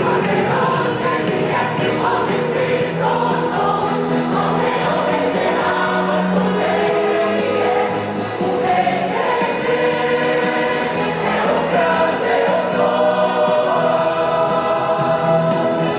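A large church choir, mostly women's voices, singing together in harmony.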